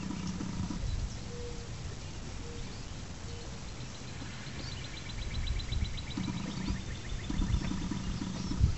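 Small birds chirping, with a fast trill in the middle, over the low rumble of an approaching NJ Transit commuter train that grows louder over the last few seconds.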